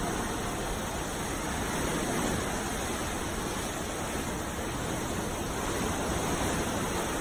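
Sea waves washing on the shore: a steady, dense rush of surf that swells a little in loudness.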